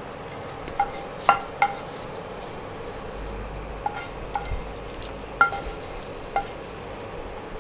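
Hot oil tempering with mustard seeds scraped out of a non-stick pan with a wooden spatula, a light steady sizzle underneath. About seven short ringing clinks come at irregular intervals as the pan and spatula knock against the rim of a glass bowl.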